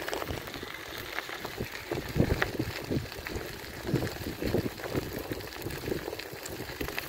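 Bicycle riding on a gravel path: tyres crunching over the gravel, with irregular small rattles and knocks from the bike.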